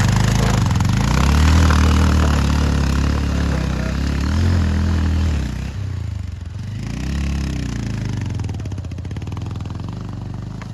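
Motorcycle engine running at low speed, revving up and falling back several times as it is ridden over a slippery, muddy track.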